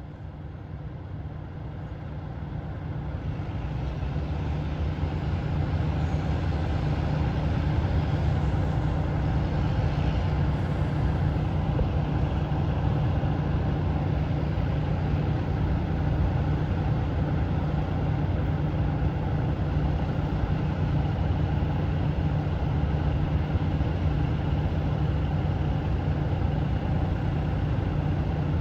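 A motor vehicle's engine running, getting louder over the first few seconds and then holding a steady low drone.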